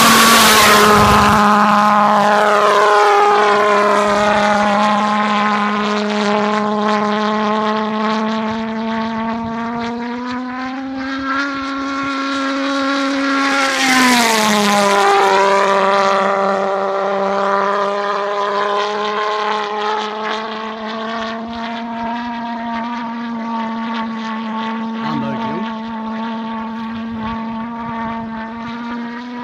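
HobbyKing "Red Head" methanol-fuelled pulse jet on a Multiplex Funjet Ultra model jet, running with a loud, steady buzz that is harshest at the start. About fourteen seconds in, the plane passes overhead and the buzz's pitch climbs, then drops sharply. After that it goes on steadily and slowly fades as the plane flies farther off.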